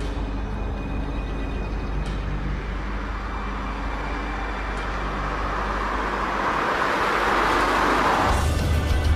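A car approaching, its road and engine noise swelling for several seconds. Near the end it cuts off abruptly into a steady low engine hum as heard inside the car.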